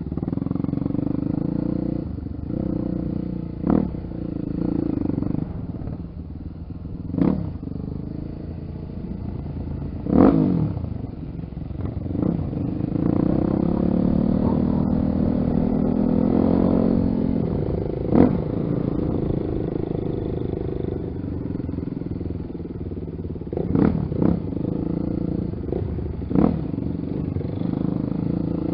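Honda XR 250 Tornado's single-cylinder four-stroke engine running while the motorcycle is ridden, with a sharp clattering knock every few seconds.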